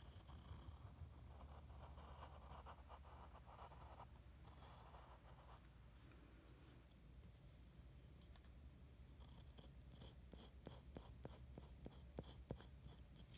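Faint pencil scratching on paper, longer drawing strokes at first, then a quick run of short strokes and ticks over the last few seconds.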